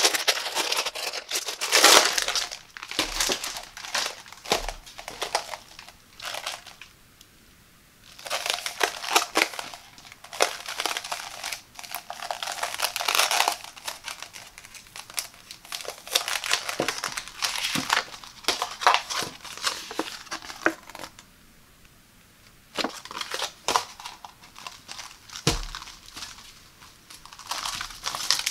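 Clear plastic wrapping crinkling as it is pulled off a rolled-up plastic shower mat, then the mat and its paper sleeve being handled and unrolled. The crinkling comes in bursts, with two short pauses.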